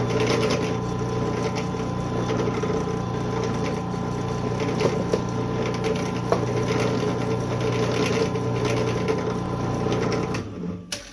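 Drill press motor running steadily with a countersink bit, countersinking the trigger-pin hole in a Glock 20's polymer frame. The motor is switched off and winds down near the end.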